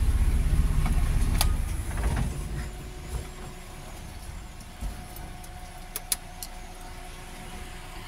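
Car engine running with an even low pulse, then dying away about two seconds in. After that only a faint steady hum and a few light clicks remain.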